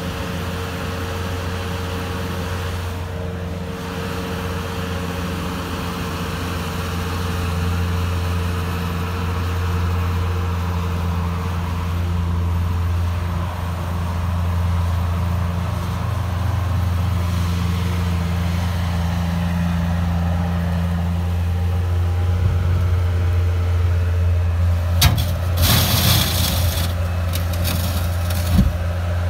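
Bobcat S130 skid-steer loader's diesel engine running steadily as it works. There is a short burst of scraping and clanking near the end.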